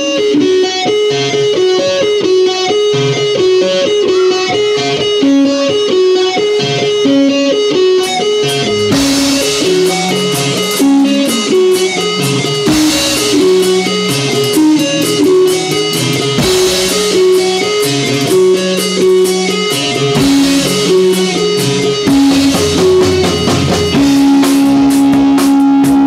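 Live rock band: an electric guitar plays a repeating picked riff alone, then the drum kit comes in about eight seconds in and the band plays on together. Near the end a long note is held.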